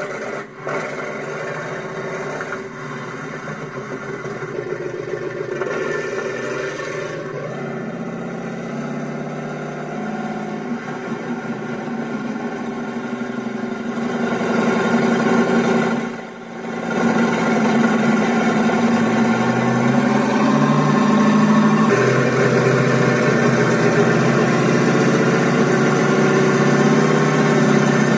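Sampled Sherman tank engine sound from a Beier SFR-1-HL sound module, played through the RC model's speaker. It runs steadily, then about halfway through grows louder and higher in steps as the throttle is worked, dips briefly, and carries on louder to the end.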